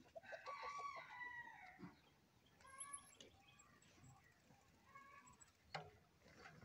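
Faint chickens calling: a rooster crows once near the start, and shorter calls follow twice. A single sharp tick sounds near the end.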